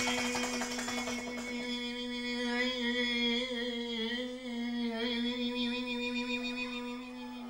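A man's voice humming one long, steady note, which wavers slightly in pitch about halfway through, as part of an experimental percussion performance.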